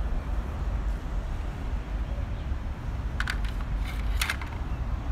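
Steady low outdoor rumble with short crackling rustles about three seconds in and again about a second later.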